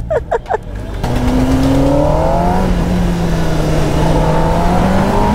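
Kawasaki ZX-10R superbike's inline-four engine under way. Its pitch rises for about a second and a half as it accelerates, then it holds a steady note.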